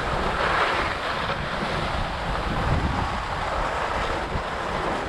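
Wind buffeting the microphone of a skier moving downhill, over a steady hiss of skis sliding and scraping across thin, granular spring snow.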